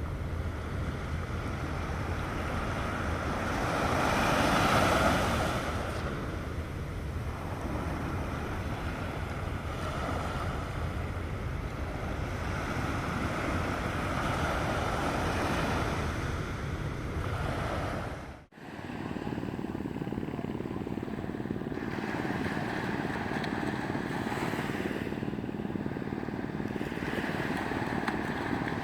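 Sea surf washing on the beach with wind buffeting the microphone, one wave swelling louder about four to five seconds in. The sound cuts out sharply about two-thirds of the way through, then a similar steady rush of noise resumes.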